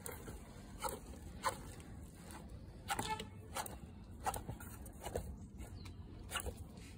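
Scattered light clicks and scrapes on the plastic basin as the bullfrog and the dubia roaches move about in it, about seven spread irregularly over several seconds.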